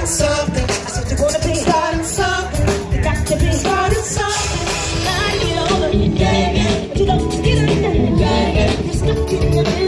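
Live band playing with a singer, keyboard and guitar, the vocal line carrying over a continuous full band accompaniment.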